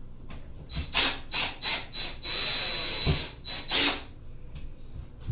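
Cordless drill pressed against a wooden mounting block on a wall, run in several short trigger bursts, then a steady run of about a second with a high motor whine, then two more short bursts.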